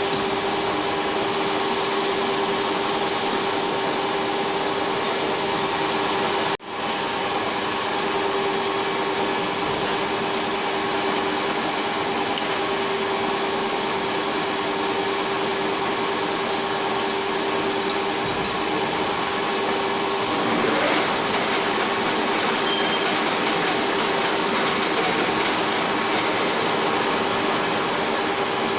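1K62 screw-cutting lathe running, its headstock gearing giving a steady whine over a dense machine noise. The sound cuts out for a moment about six and a half seconds in.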